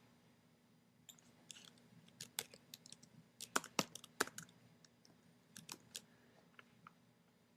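Typing on a computer keyboard: irregular key clicks, some in quick runs, with short pauses between.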